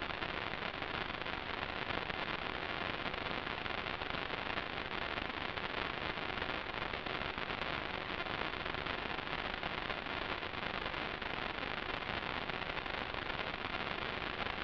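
Steady, even hiss of static with no motor or propeller tone in it, typical of the empty audio channel of an analog FPV video link.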